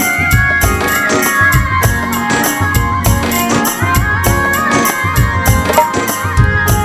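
Instrumental break in a song: a steady drum beat with a high melody line that slides between notes.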